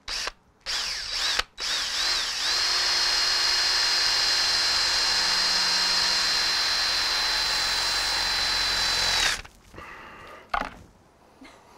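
Cordless drill boring a bit into the core of a pineapple. A few short trigger pulses come first, then about seven seconds of continuous running with a steady high whine. The drill cuts off suddenly, followed by a few faint knocks.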